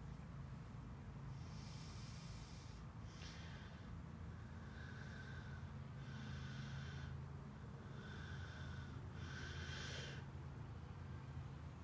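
A person breathing audibly through the nose, about six breaths, roughly one every second and a half.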